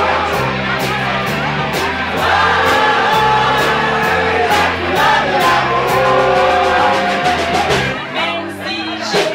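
A live band plays a song: singing over a stepping bass line and steady percussion. Near the end the bass drops out for about a second.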